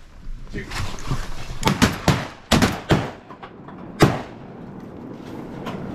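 A quick run of sharp bangs and knocks, several close together about two seconds in and one louder strike about four seconds in.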